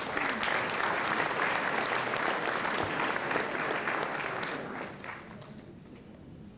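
Audience applauding, a dense patter of many hands clapping that starts at once and dies away about five seconds in.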